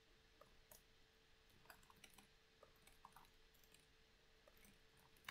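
Very faint, irregular clicks of computer keyboard keys being typed, over a faint steady hum.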